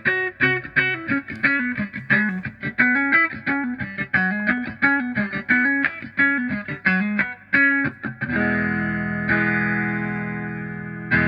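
Electric guitar played through a Vox 846 hand-wired wah pedal: a run of quick picked single notes for about eight seconds, then a chord left ringing, struck again near the end.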